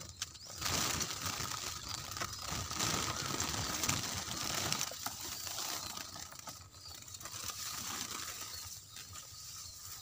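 Irregular rustling and scraping handling noise around a wire cage of netted munias, with faint fluttering and bird sounds from the caged birds.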